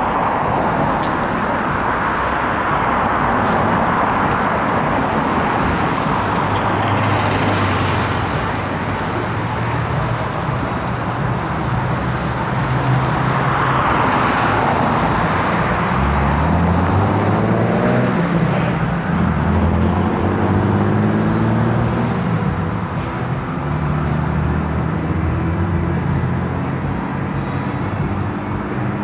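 Road traffic on a city street: cars driving past, swelling twice, with a low engine hum that rises and drops in steps as vehicles pull away.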